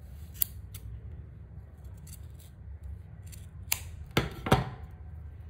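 Scissors snipping through knotted T-shirt yarn to trim the knot's ends, with a run of short, sharp snips at uneven spacing. The loudest snips come about four seconds in.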